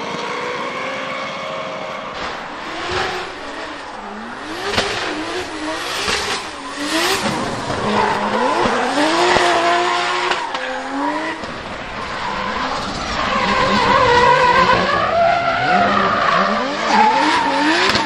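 A drift car's engine revving up and down in quick repeated sweeps, over the hiss and squeal of sliding tyres. It grows louder in the second half.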